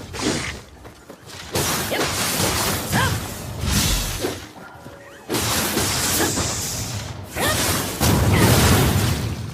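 Naginata spear combat sound effects: a run of sudden swishes, hits and crashing impacts one after another, a few with a short ringing tail.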